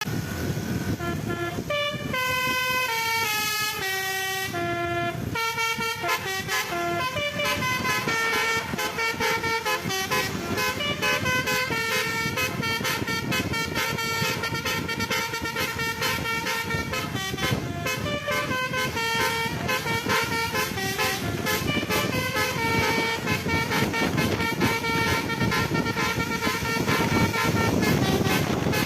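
Bus telolet basuri musical horn playing a melody, one held note after another in clear pitch steps, over the low rumble of the bus. From about six seconds in, many short clicks run along with the tune.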